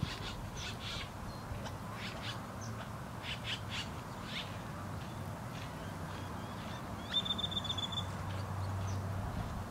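Wild birds calling: a run of short, sharp calls in the first few seconds, then a high, rapid trill about seven seconds in, over a low steady hum.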